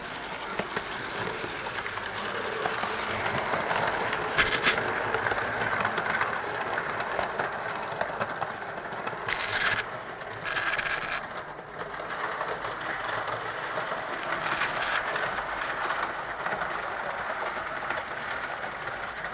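Model railway locomotives running on the track, a Class 31 and an InterCity 125 power car: a steady whirr of small electric motors and wheels rattling over the rails. A few short, brighter rasps stand out, about 4 s in, twice around 10 s as the trains pass each other, and once near 15 s.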